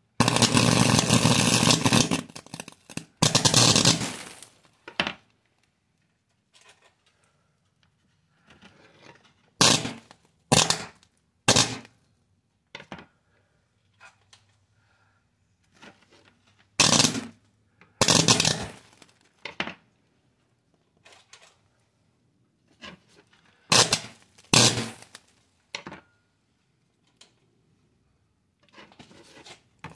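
Electric arc sparking and burning across a charred computer motherboard, in repeated loud bursts: a long one of about two seconds at the start, another of about a second, then shorter bursts every few seconds.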